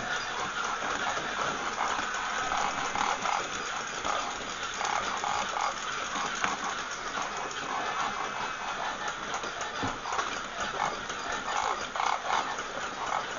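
Battery-operated walking toy animal running, its small motor and gears giving a rapid, continuous clicking as it walks.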